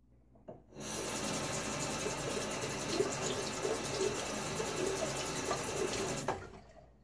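Bathroom tap running into the sink for about five seconds, turned on just under a second in and off shortly before the end.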